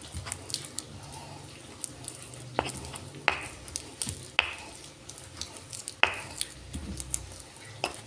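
Stone pestle grinding and scraping wet chilli paste in a stone mortar (ulekan and cobek), with a steady run of small clicks and several sharp stone-on-stone clacks.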